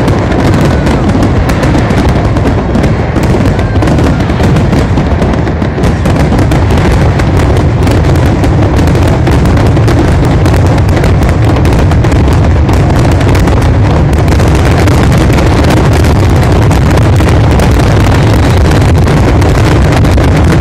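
A dense, continuous barrage of fireworks: rapid overlapping bangs and crackles from aerial shells bursting, loud and without a pause.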